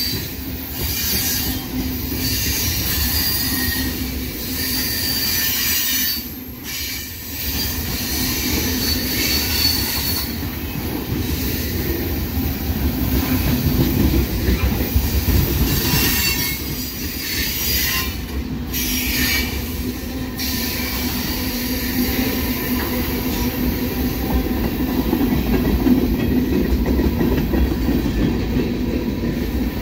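Freight cars of a long mixed freight train rolling past close by: a steady rumble of steel wheels on rail, with thin squeals from the wheels coming and going. The noise dips briefly a few times.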